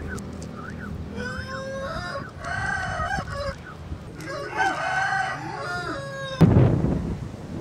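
A rooster crowing: two long calls that rise and fall, a few seconds apart. Near the end, a sudden gust of wind buffets the microphone.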